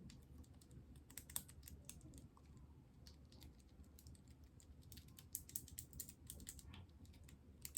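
Mechanical keyboard switches on a 12-switch key tester being pressed one after another: faint, irregular clicking.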